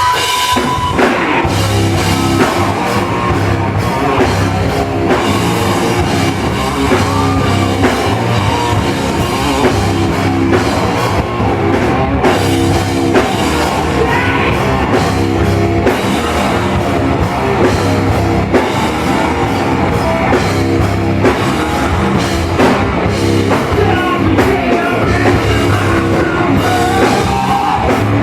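Loud rock music with a drum kit and guitar playing steadily, with a short steady high tone at the very start.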